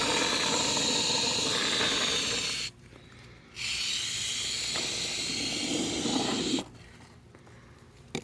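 Can of expanding foam sealant spraying with a steady hiss in two bursts: about two and a half seconds, a short pause, then about three seconds more.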